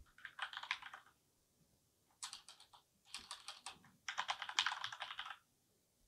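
Computer keyboard typing: four quick runs of keystrokes separated by short pauses, the last and longest about four seconds in.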